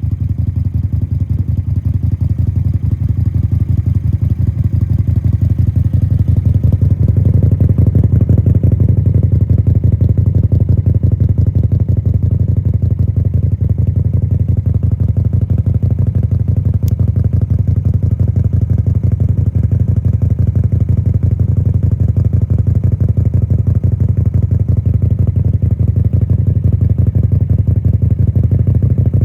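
Suzuki Intruder 250LC's 250cc V-twin running steadily through a two-into-one exhaust that ends in an open-end aftermarket silencer, one made for the Harley V-Rod. The exhaust note grows a little louder and fuller about seven seconds in.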